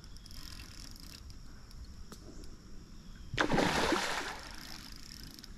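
A hooked hen chinook salmon thrashing at the surface of a shallow river: one big splash about three and a half seconds in, lasting about a second.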